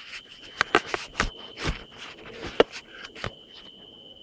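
A string of irregular knocks and rubs from handling, with the loudest knock about two and a half seconds in, over a steady high insect trill.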